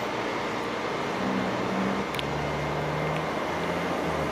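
Siemens Charger diesel-electric locomotive passing with its passenger train: a steady rumble of wheels on rail with the engine's low drone coming in about a second in and growing stronger after two seconds.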